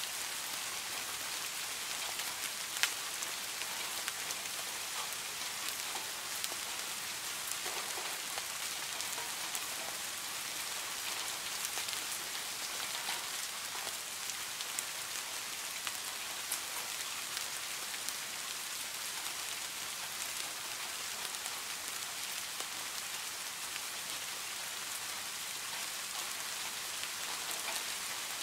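Steady rain falling on a garden fish pond, a dense patter of drops splashing into the water surface, with one louder drop about three seconds in.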